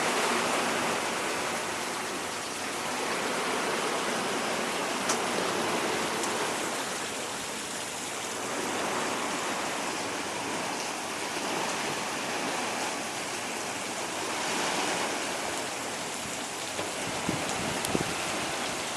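Ocean waves washing in, a continuous rush that swells and eases every few seconds.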